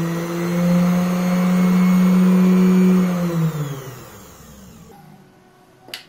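A 500-watt universal motor from a sewing machine, with a pulley on its shaft, running at very high speed with a steady whine. About three seconds in it winds down, its pitch falling until it is faint.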